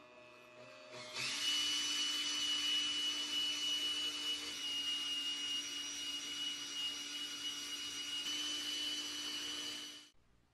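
Small electric power tool running steadily with a constant whine; it comes up to full loudness about a second in and shuts off abruptly near the end.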